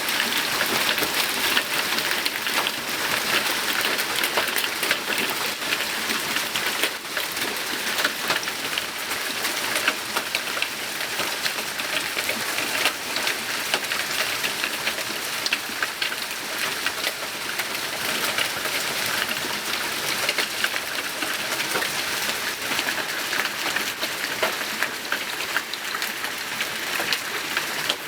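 Large hailstones falling and striking surfaces: a dense, steady rush of countless small sharp hits.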